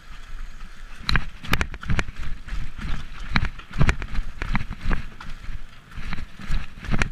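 Mountain bike clattering and rattling down cobblestones and stone steps, with irregular sharp knocks from the jolts starting about a second in over a low rumble.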